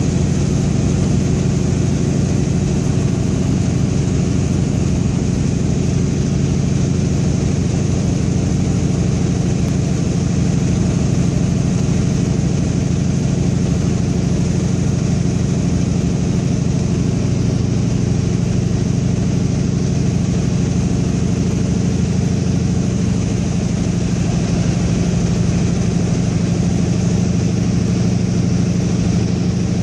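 Antonov An-2's nine-cylinder Shvetsov ASh-62 radial engine and propeller droning steadily in flight, heard from inside the cabin with a constant airflow hiss. Its low tone shifts slightly about halfway through.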